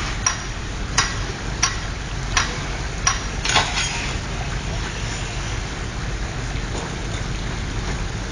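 Pile-driving hammer striking a concrete sheet pile: a run of sharp blows about every three-quarters of a second that stops about four seconds in, over a steady low engine rumble.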